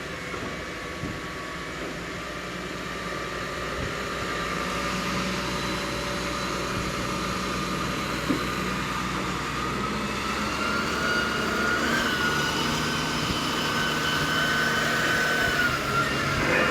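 Diesel engine of a wheeled excavator running steadily, with a thin whine over it that rises a little in pitch and grows louder from about ten seconds in. A short sharp sound comes at the very end.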